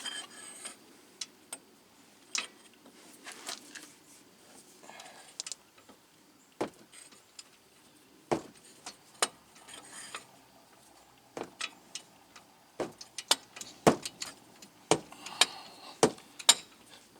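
Steel hand tools clinking and knocking: a socket, wrench and cheater bar being fitted onto the hub bearing's 18 mm bolts and levered against, with the clanks coming faster near the end.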